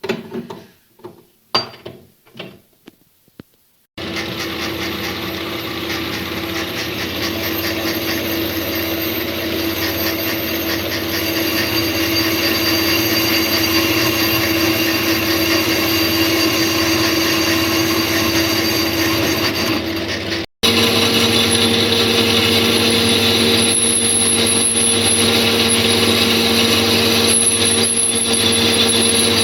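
A few sharp knocks, then a machine tool's electric motor starts and runs steadily with a held hum and cutting noise. About two-thirds of the way through it cuts out for an instant and carries on with a higher-pitched hum.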